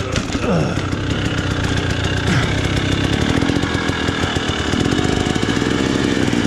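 KTM 300 XC-W dirt bike's two-stroke engine revving up and down on the throttle while the rear tyre spins in loose dirt and rock, throwing dust, as the bike struggles on a rocky climb.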